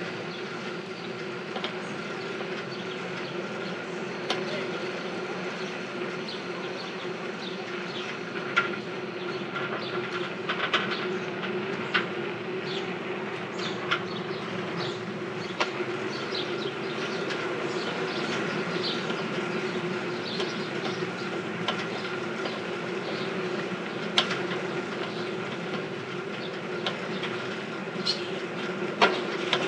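Rented Sypherd bicycle rattling as it is ridden: a steady whirring drone from the moving bike with scattered clicks and clanks, the bike's noise noted as 'a bit noisy'.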